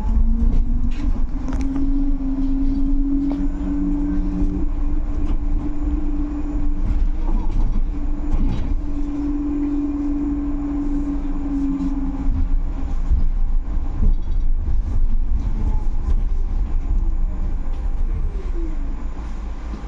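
Solaris Urbino 18 IV electric articulated bus under way, heard from inside the cabin: low road rumble and rattles with a steady electric drive whine for about ten seconds, then a whine falling in pitch near the end as the bus slows.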